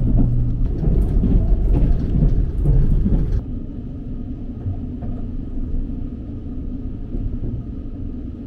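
Limited express train heard from inside the carriage: a loud, steady rumble with rail clatter as it crosses a river bridge, cutting off abruptly about three and a half seconds in to a quieter, steady low hum with the train halted at a station to wait for an oncoming train.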